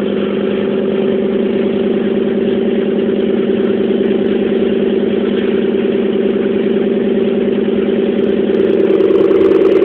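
Snoring: a steady, rapidly pulsing low rumble that keeps going without a break and grows a little louder near the end.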